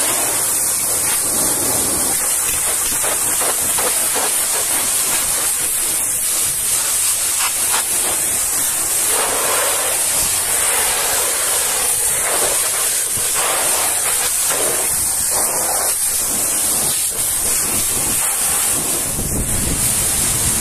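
High-pressure washer jet hissing steadily as it blasts foam and grime off a truck's wheels and tyres, the splatter on the rims and wet ground rising and falling as the lance moves. Near the end the sound turns deeper.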